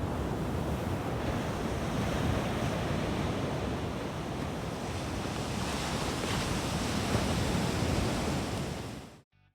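Ocean surf breaking on a sandy beach, a steady rushing wash with wind on the microphone, cut off abruptly near the end.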